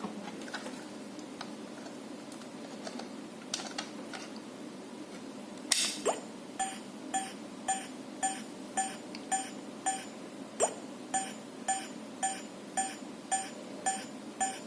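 A Fluke IntelliTone Pro 200 probe in cable-map mode gives a short electronic beep about twice a second. This is the different tone that signals an open, broken wire in the cable under test. The beeping starts about six seconds in, right after a sharp click; before that there are only a few faint handling clicks.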